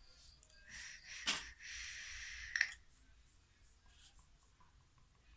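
Breathy puffs from a person vaping: a short airy puff about a second in, then about a second of steady hiss ending in a sharp puff, as vapor is pushed out in O-rings with the tongue.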